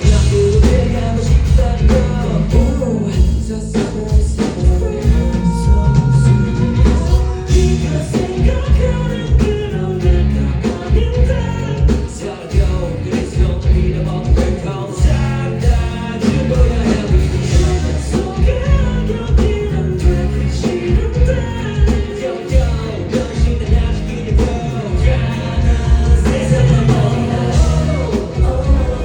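Live rock band with vocals: drums, bass and electric guitars under singing, at a loud steady level through a strong low beat.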